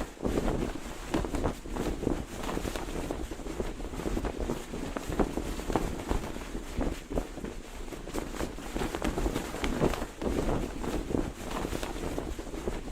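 Cloth flag flapping in the wind, with irregular quick snaps of the fabric over a steady rush, and wind buffeting the microphone.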